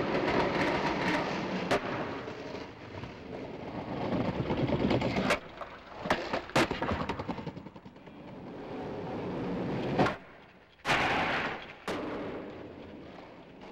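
Skateboard wheels rolling on concrete, broken by several sharp cracks of the board's tail popping and the board slapping down on landings.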